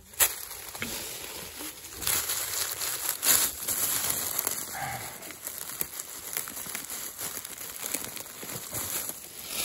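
Dry leaf litter rustling and crackling as a hand works among the leaves around a large porcino mushroom, with many small crackles and the loudest spells about two to three and a half seconds in.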